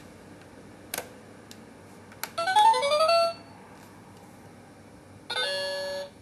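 Electronic whack-a-mouse toy's built-in speaker playing its sound effects. Two clicks come first, then a short rising electronic jingle about two and a half seconds in, and a held electronic beep near the end.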